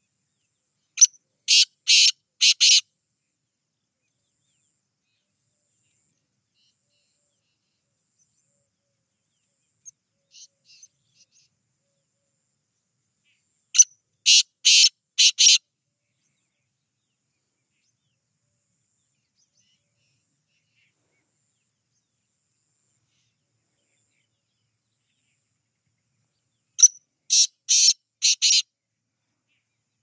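Black francolin calling three times, about thirteen seconds apart: each call a short note followed by three or four harsh, grating strokes. A much fainter, shorter call comes around ten seconds in.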